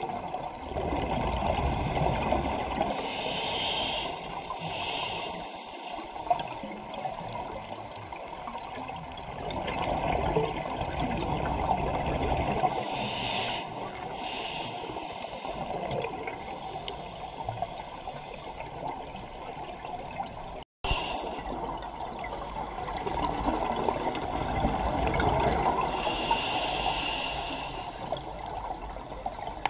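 Scuba regulator breathing underwater: a hiss on each of three slow inhalations and a bubbling rumble of exhaled air between them.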